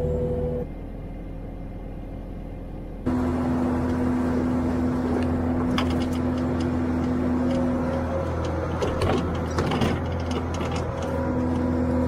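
Kubota loader engine driving a Kubota snowblower attachment, a steady mechanical hum that turns louder about three seconds in as the blower throws snow. Sharp ticks and rattles come through it between about six and ten seconds, as the blower chews and throws the snow.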